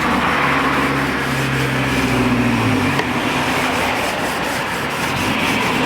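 Steady scrubbing and rubbing on a G gauge model railway track point as it is cleaned. A low hum sits underneath for the first three seconds or so.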